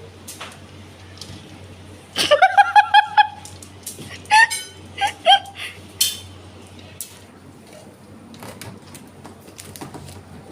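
A person giggling: a burst of quick high-pitched laughing pulses about two seconds in, then a few shorter ones. Soft clicks and knocks follow.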